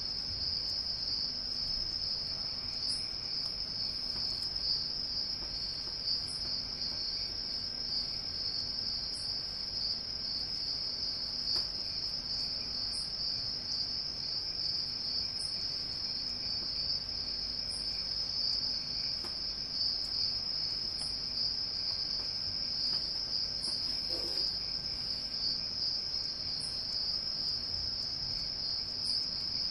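A steady, high-pitched, insect-like chirring drone, like crickets, that never lets up, with a faint low pulsing hum under it.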